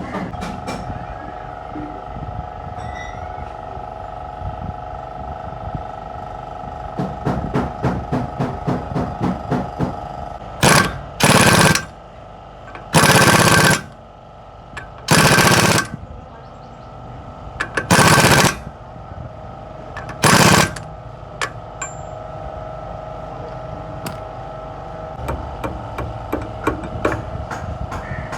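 Rapid runs of metal knocking, then five loud bursts of about a second each from an air tool, over a steady machine hum.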